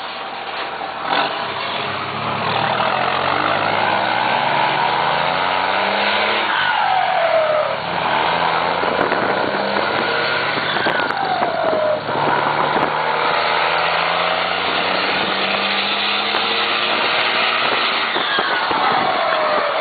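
Volkswagen Constellation truck's diesel engine accelerating, its pitch climbing slowly, with short drops in sound about eight and twelve seconds in. A whistle falls in pitch three times.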